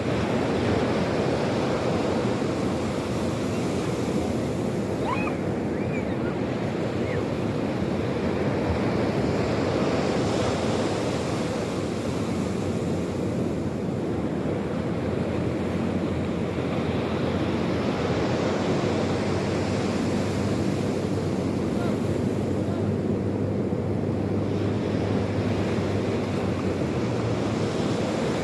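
Sea waves washing ashore in a steady surf, swelling and easing every several seconds, with wind on the microphone.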